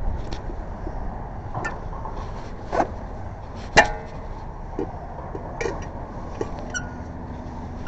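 A steady low rumble of passing traffic, with scattered metallic clinks and knocks from tools and wheel parts being handled during a roadside tire change. The loudest is a single ringing clink about four seconds in.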